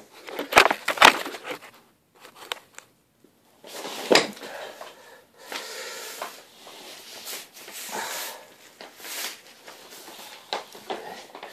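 Plastic underlayment film crinkling and rustling as one sheet is lapped over another and pressed flat by hand on the floor. A few sharp knocks come in the first second and another about four seconds in.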